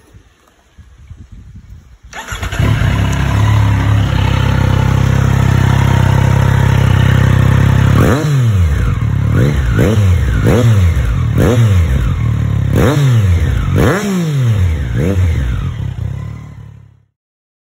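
Triumph Street Triple 660 S's three-cylinder engine starting about two seconds in and idling, then revved in a string of quick throttle blips, each rising and falling in pitch, before dropping back to idle; the sound stops abruptly near the end.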